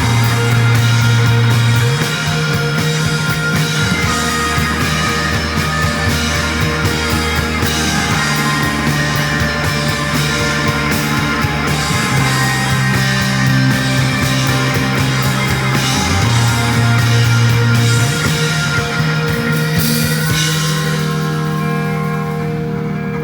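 Live instrumental rock band playing: two electric guitars, bass, drums and keyboard, with bass notes shifting every couple of seconds under dense cymbals. About 20 seconds in the drums and cymbals drop out, leaving sustained guitar and keyboard chords.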